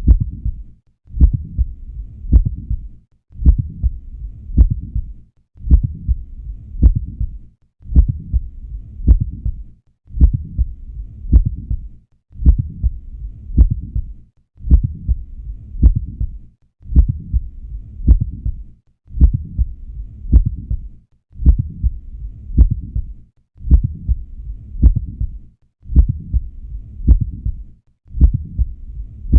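Heart sounds heard at the cardiac apex, with a mid-systolic click falling between the first and second heart sounds. Each beat is a cluster of sharp, low-pitched knocks, repeating steadily about once a second. A mid-systolic click is the typical sign of mitral valve prolapse.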